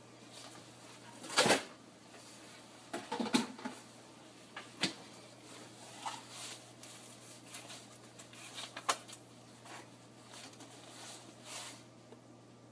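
Scattered knocks and clicks of a plastic squeeze bottle of mustard being handled and squirted into a mixing bowl, the loudest about a second and a half in and again a few seconds in.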